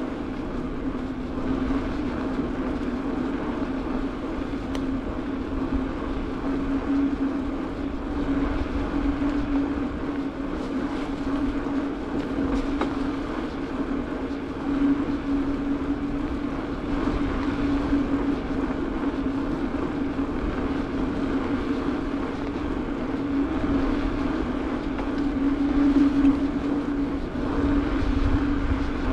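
Mountain bike rolling steadily along asphalt: a continuous low tyre hum over a rumble of road and air noise, swelling a little now and then with speed.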